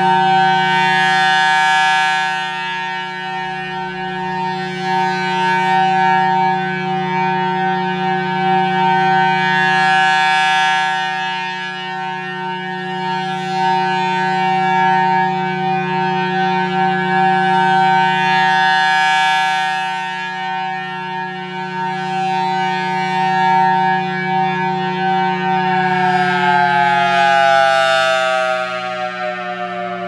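Reverse-wired Federal Signal Thunderbolt 1000T siren sounding a steady full-alert tone, swelling and fading about every eight to nine seconds as its horn rotates past. Near the end the tone begins winding down, falling in pitch.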